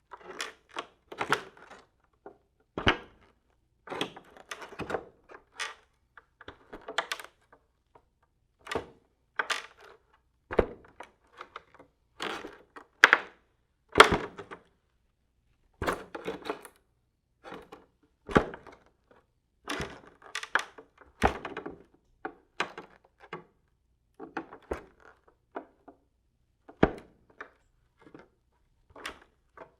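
Boots stepping slowly on creaky wooden floorboards, as in sneaking: single steps spaced irregularly, about one every second or two, each a knock of the heel with a short creak of the wood.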